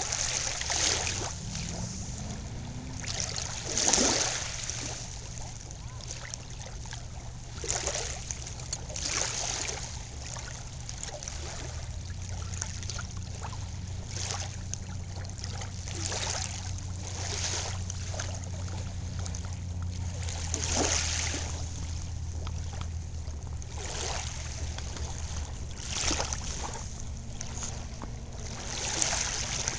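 Small lake waves lapping on a sandy shore, heard up close: a soft swish as each ripple washes in and draws back, every few seconds.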